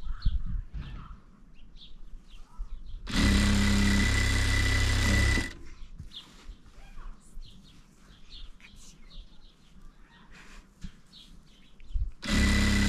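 Electric sewing machine running in two steady bursts of about two seconds each, a few seconds in and again near the end. Birds chirp faintly in between.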